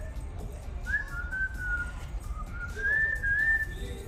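A woman whistling as a cheer: a single clear tone sliding between pitches, in a short phrase about a second in and a longer, rising phrase from about two and a half seconds.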